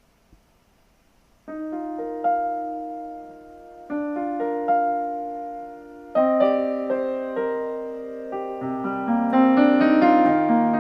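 Recorded solo piano played back through a homemade three-way loudspeaker system built from Fostex drivers. About a second and a half in, held chords start. A new chord is struck every two seconds or so, and each one fades. Near the end, quicker notes and a bass line fill in.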